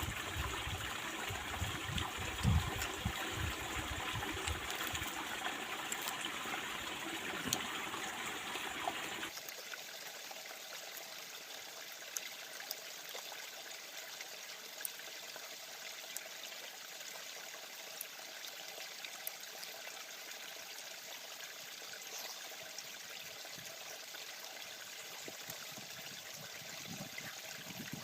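Small stream babbling and trickling steadily. About nine seconds in the sound changes abruptly and loses its low rumble and knocks, leaving a thinner, even trickle.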